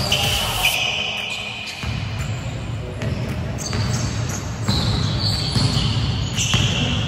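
Basketball being dribbled on a hardwood gym floor, with repeated bounces and brief high-pitched squeaks of sneakers.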